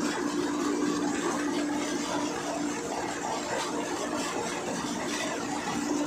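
Tractor-driven thresher running steadily: the tractor engine's constant hum with the machine's even whirring noise over it.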